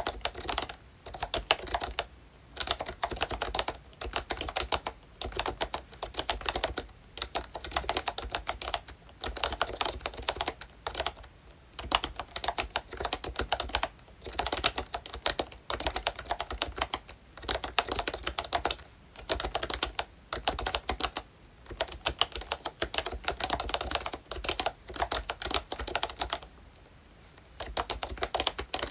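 Typing on a membrane keyboard with round retro typewriter-style keycaps: fast runs of soft key clicks broken by short pauses every few seconds, with a longer pause near the end.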